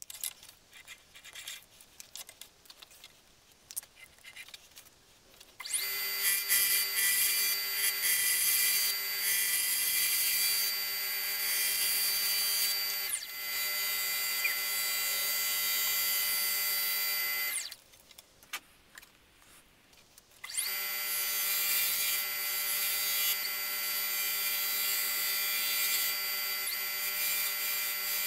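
Quiet handling at first. About six seconds in, an Axminster wood lathe starts with a steady motor whine, and a turning tool cuts and rubs inside the spinning spalted wood blank as the vase is hollowed. The lathe winds down and stops around eighteen seconds, then starts again about three seconds later and the cutting resumes.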